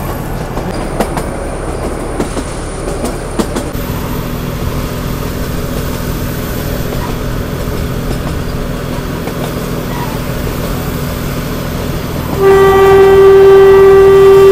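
Narrow-gauge train running, with clicks of the wheels over the rail joints in the first few seconds. About two seconds before the end the ZDM-4A diesel locomotive's horn sounds one loud, steady note and holds it.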